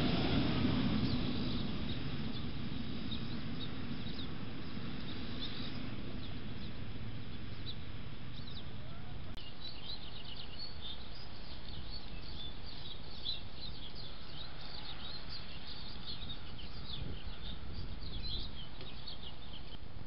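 Small birds chirping and twittering in quick, overlapping calls from about nine seconds in, over a trail camera's steady outdoor hiss. At the start, a louder low rush of noise fades over a couple of seconds.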